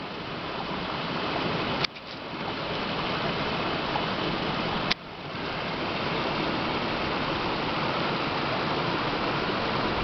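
Small mountain stream running over rocks: a steady rushing of water. It is broken twice by a brief click and a momentary drop in level.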